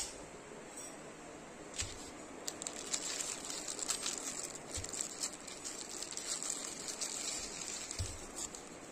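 Clear plastic bag crinkling and rustling as it is pulled off the head of a ball-peen hammer, with a few soft thumps as the hammer is handled.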